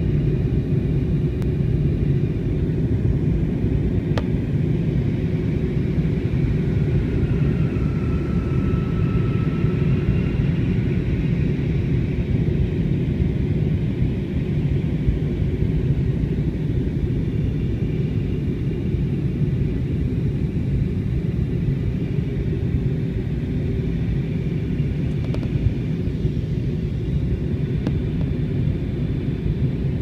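Steady cabin rumble of a jet airliner in flight, heard from a window seat: engine and airflow noise, unchanging throughout.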